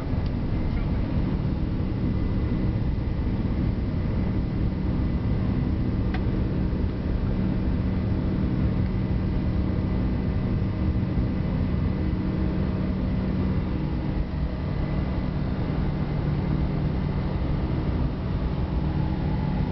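Lockheed TriStar's engines and airflow heard from inside the flight deck during lift-off and climb-out: a steady, even roar with a low rumble and a faint high whine running through it.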